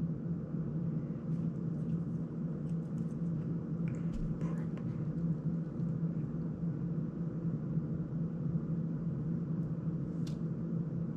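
Steady low background hum, with a few faint clicks from the small plastic-framed drone being handled about four seconds in and again near the end.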